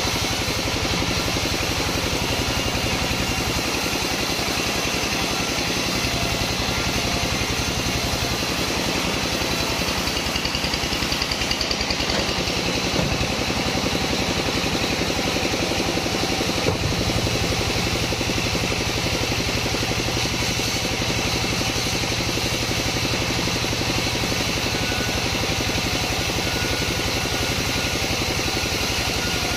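Engine-driven sawmill saw running steadily while it cuts long wadang timber, with one sharp knock about seventeen seconds in.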